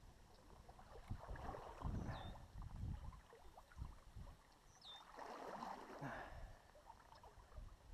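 Wind gusting on the microphone over the rushing of a meadow stream, with two short high falling whistles, one about two seconds in and one about five seconds in.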